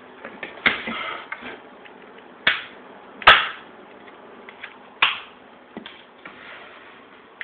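A series of sharp knocks and clatters from objects being handled, the loudest a little over three seconds in, with smaller clicks between.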